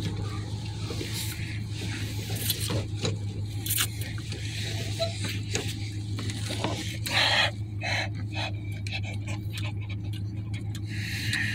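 Eating noodles: chewing and mouth noises, with plastic forks clicking and scraping in a foil tray, as many short sharp ticks over a steady low hum.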